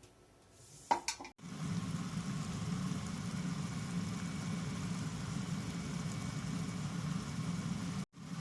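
A short clatter about a second in, then a pan or pot cooking on the stove: a steady, dense hiss over a low hum, which breaks off briefly near the end.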